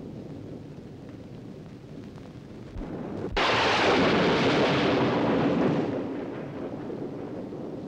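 Film thunderclap: a sharp crack about three seconds in, then a loud rolling rumble that fades after a couple of seconds, over a steady low rumble.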